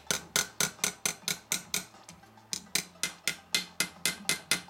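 Small planishing hammer tapping rapidly on a silver buckle held on a stake head, about five light metallic taps a second, with a brief pause about two seconds in and the tapping stopping near the end. The tapping sets down the edges of the soldered-on pieces so they won't catch.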